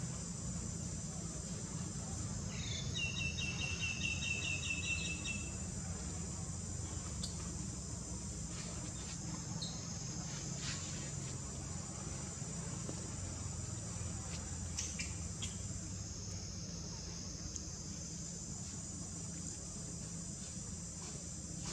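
Steady high-pitched drone of insects (crickets or cicadas), with a short rapid trill about three seconds in and a low background rumble.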